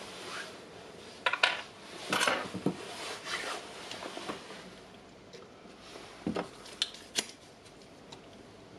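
Small tools and parts being handled and set down on a wooden workbench: scattered light clicks and knocks, with a cluster about a second or two in and another few about six to seven seconds in.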